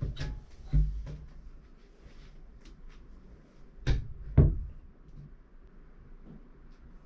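A few dull knocks and thumps, like things being bumped or set down: two close together at the start, then two heavier ones about half a second apart near the middle.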